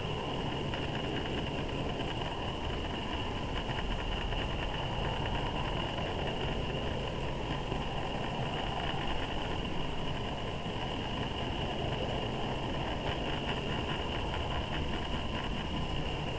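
Model railway freight train running steadily along the track, heard from a camera riding on one of its wagons: a continuous rumble of wheels on rail with a steady high whine and faint fine ticking over it.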